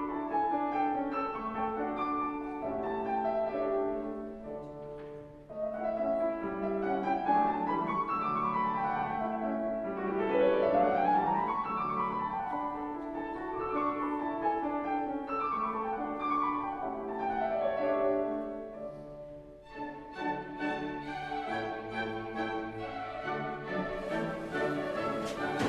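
Instrumental classical-style music with piano and strings, with rising and falling runs of notes in the middle and two brief lulls.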